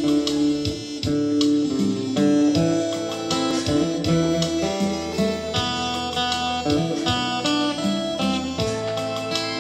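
Acoustic guitar being played solo: a run of plucked notes and chords.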